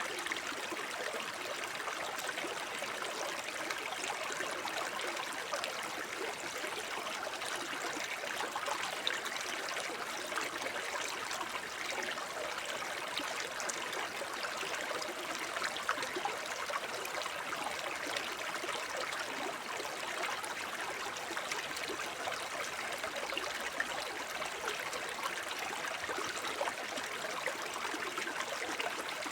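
Small forest brook babbling steadily, water trickling and gurgling over stones.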